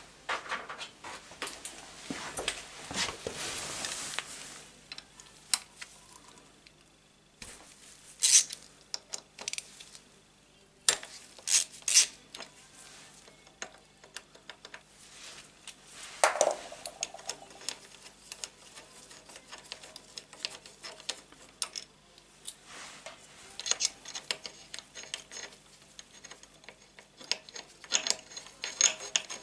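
Metal clinks and clicks of a hand bit driver working the hex bolts of a Yamaha FZS1000 Fazer's aluminium footrest plate, with handling and rustling in the first few seconds. Sharp single clicks come every few seconds, then a run of quick light ticks near the end.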